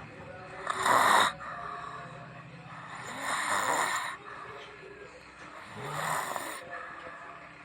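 A person snoring, three snores about two and a half seconds apart.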